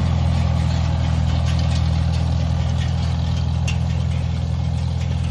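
An engine running steadily at an even low speed, with a few faint clicks over it.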